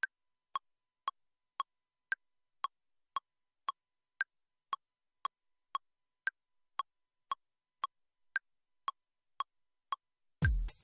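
Software metronome click counting in 4/4 at a little under two clicks a second, every fourth click higher as the accented downbeat. Near the end an electronic beat with a deep kick drum comes in.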